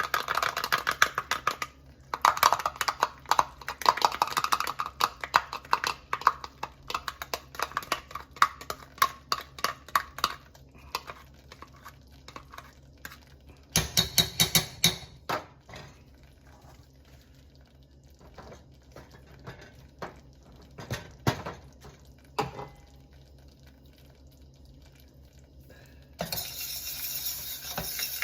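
Wire whisk clicking and scraping rapidly against a pan as it stirs a roux with tomato paste. The stirring is dense at first, then comes in short spells with quieter gaps, and a louder steady rush of noise starts near the end.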